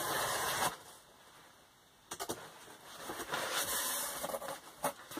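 Cardboard box and packaging being handled and opened: a burst of rustling, a pause, then a few sharp clicks and more rustling.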